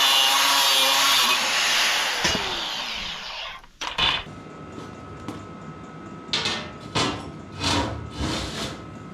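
An electric power tool works steel with a loud, steady whine, then spins down with a falling pitch and stops. Several short bursts of noise follow, a second or so apart.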